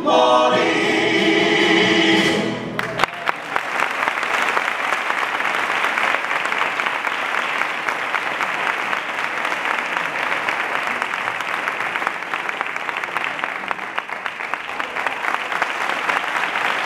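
A group of male voices singing together in harmony, closing on a held chord about three seconds in, followed by steady audience applause.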